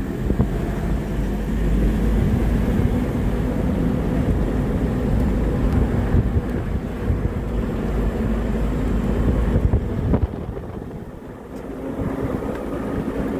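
A vehicle's engine running while travelling, a steady low rumble with wind noise; it eases off briefly about ten seconds in, then picks up again.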